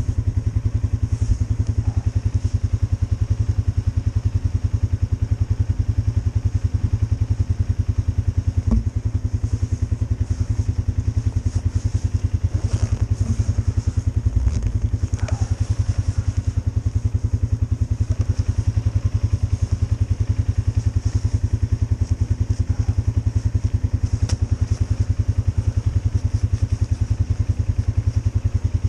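Polaris Sportsman 570 ATV's single-cylinder four-stroke engine idling steadily with a fast, even pulse.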